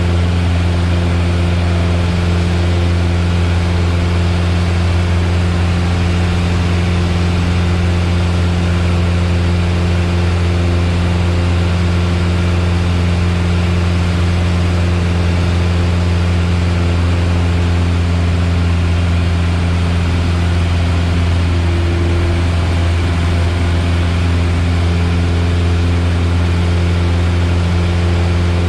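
Piper Warrior's four-cylinder Lycoming engine and propeller droning steadily, heard from inside the cabin: a loud, even, low hum with a rushing hiss over it and no change in power.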